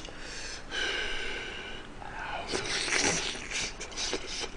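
Close-miked eating sounds: a long in-drawn slurp with a whistling edge about a second in, then wet chewing and lip-smacking on spicy braised chicken and kimchi.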